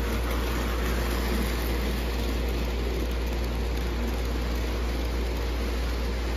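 O gauge model passenger train rolling along three-rail tubular track, a steady rumble with a low hum underneath.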